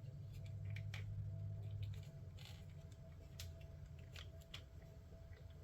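Faint, scattered clicks and taps of a plastic action figure being handled, over a low steady hum.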